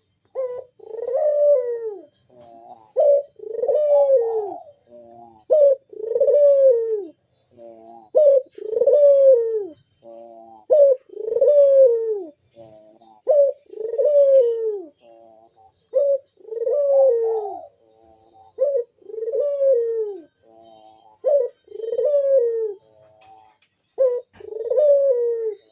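Puter (Barbary dove) cooing in its loud, deep manggung call, over and over: each phrase is a short note or two followed by a long coo that rises and then falls, repeated about every two and a half seconds.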